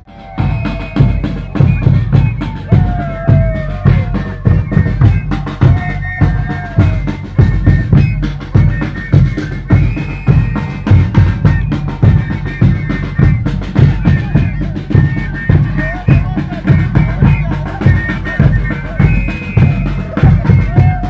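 Band music with a bass drum and snare keeping a steady, continuous beat under a melody.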